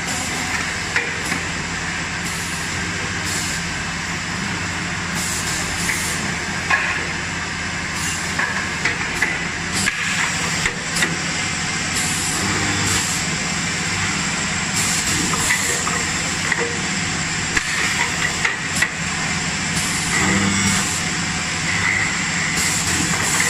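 MZ9312B CNC double-end wood drilling machine running: a steady motor hum with drill bits boring into timber, broken by frequent short knocks and brief hisses of air as the pressing device clamps and releases the workpiece.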